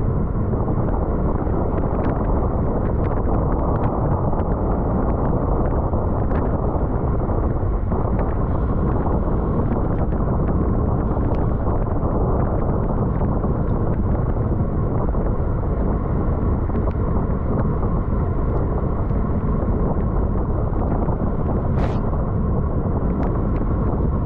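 Wind rushing over the microphone of a camera on a bicycle ridden at race speed: a steady, loud low rumble with a few faint ticks.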